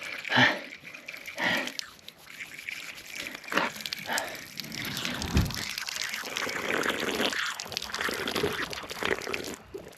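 A person drinking water, with liquid sloshing and gulps between a few short knocks and rustles.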